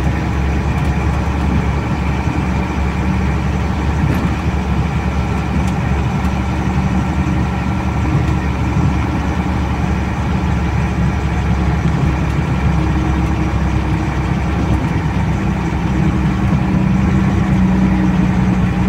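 Truck engine running steadily under load as it climbs a rough, stony dirt road, heard from inside the cab, growing a little louder near the end.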